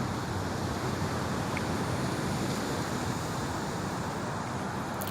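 Steady outdoor rushing noise with no distinct events, the kind made by distant surf, traffic and breeze together.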